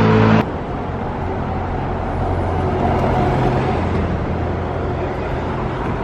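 Street traffic noise: steady road noise from cars, with one vehicle passing that swells about three seconds in. It opens with a short, louder pitched sound that cuts off abruptly under half a second in.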